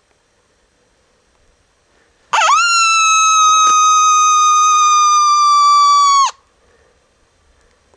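Coyote howler call sounded as one long lone howl: a quick swoop up into a steady high note that sags slightly and cuts off sharply after about four seconds.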